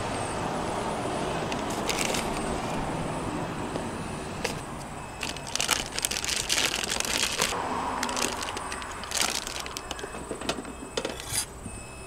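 Plastic bag crinkling and rustling in several short bursts while ingredients are handled over a plastic mixing bowl, with a steady rushing noise under the first few seconds.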